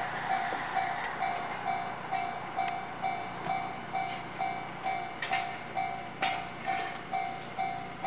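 Electronic warning bell of a Japanese railway level crossing, ringing a steady two-tone ding about twice a second, the signal that a train is approaching. A few sharp clicks sound around five and six seconds in.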